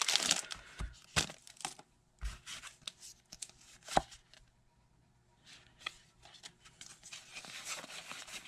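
The plastic wrapper of a Pokémon trading-card booster pack is torn open and crinkled, loudest in the first moment. Scattered crackles and clicks follow as the wrapper and cards are handled, with a sharp click about four seconds in and more crinkling near the end.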